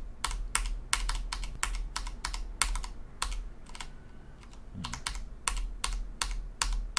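Computer keyboard keys pressed one at a time, about three clicks a second, with a pause of about a second around the middle.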